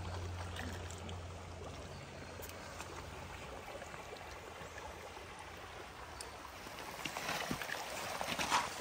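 Stream water running steadily, with a few sharp clicks and taps coming in near the end.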